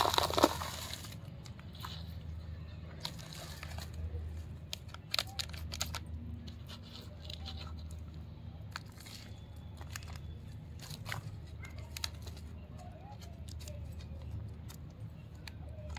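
Dry coco peat being crumbled by hand and pressed into thin plastic cups: scattered rustling, crunching and crackling, with a noisier burst at the start, over a steady low hum.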